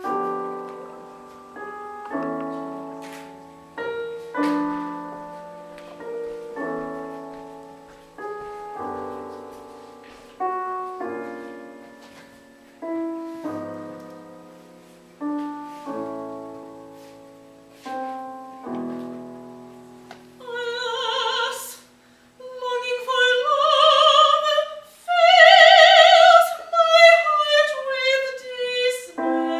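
Piano playing slow chords, one struck about every two seconds and left to fade. About two-thirds of the way in, an operatic voice comes in over the piano, singing long held notes with vibrato.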